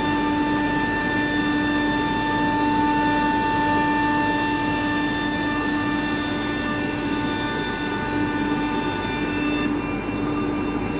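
CNC router machinery running steadily, a loud mechanical noise with several steady whining tones; some of the higher tones cut out near the end.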